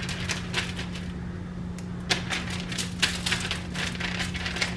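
Hands pressing and spreading diced potato cubes on a foil-lined sheet pan: irregular clicking and crackling of the cubes shifting against one another and the crinkling aluminium foil, over a steady low hum.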